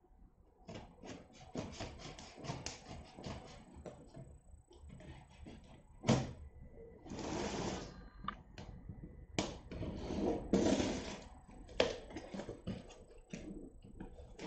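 Scissors cutting through the packing tape along the seam of a large cardboard box: a run of crackling snips and tearing. Three sharp knocks and stretches of scraping come in between as the box is shifted and turned on the wooden floor.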